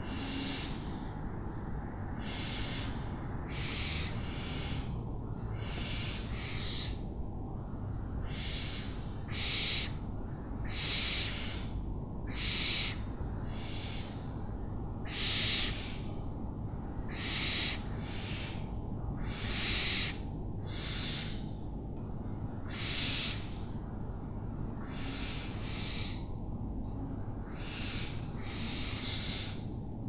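Owls giving a long run of short, rasping screech calls, about one every second or so, some louder than others, over a steady low background rumble.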